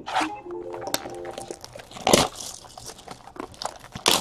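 Plastic shrink wrap crinkling and tearing as a sealed box of trading cards is unwrapped, with louder crackles about two seconds in and again near the end.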